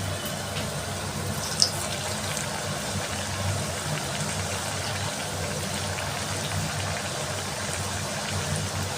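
Shaped thekua dough cakes frying in hot oil in a kadai: steady sizzling, with one sharp click about one and a half seconds in.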